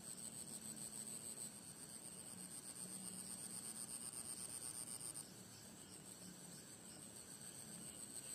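Faint, steady high-pitched trilling of insects in a rice paddy, easing off slightly about five seconds in.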